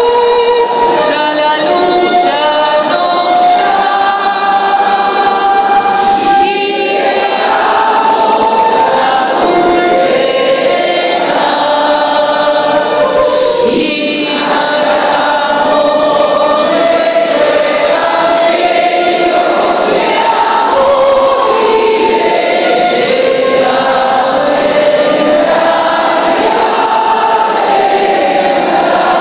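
A group of voices singing a song together in held, wavering notes, accompanied by a transverse flute.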